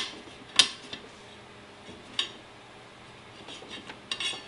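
Sharp metallic clicks and clinks of motorcycle brake pads shifting in their caliper as they are spread apart and the caliper is fitted over the brake disc, with a quick cluster of clicks near the end.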